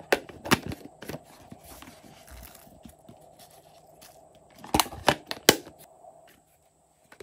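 Hard plastic case clacking and clicking as it is handled and its cover lifted off, with three loud clacks in quick succession about five seconds in.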